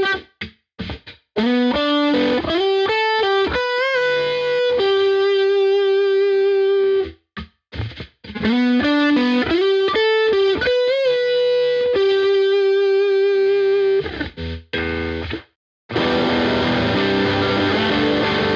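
Epiphone Les Paul Black Beauty electric guitar played through distortion. A single-note lead phrase with bent and held notes is played twice, then come a few short choppy hits, and distorted chords ring out near the end.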